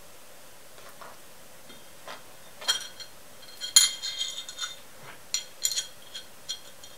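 Metal parts of an Emco Unimat SL jigsaw attachment clinking and knocking as they are handled and fitted together. A few sharp clinks start about three seconds in. The loudest comes about four seconds in, with a brief metallic ring.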